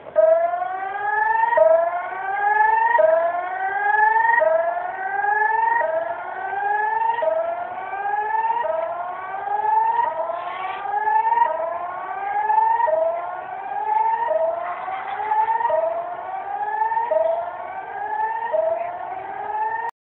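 Electronic emergency-alert siren sounding a tsunami evacuation warning. It rises in pitch in a whoop, drops back abruptly and starts again, about every one and a half seconds.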